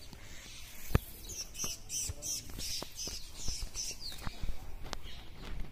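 Small birds chirping, a quick run of short high chirps between about one and four seconds in, with a sharp knock about a second in.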